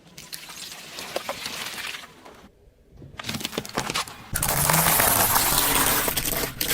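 Objects crushed under a car tyre: scattered cracks and crackling, then a sudden, much louder stretch of dense crunching from about two-thirds of the way in.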